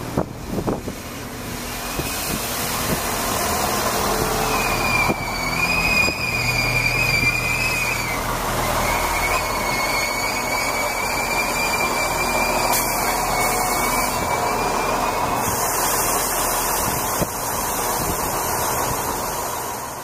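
Irish Rail 22000 Class diesel multiple unit drawing into a platform and slowing to a stand, with steady rail and running noise. A high squeal sets in a couple of seconds in as it slows, holds for about thirteen seconds, then stops.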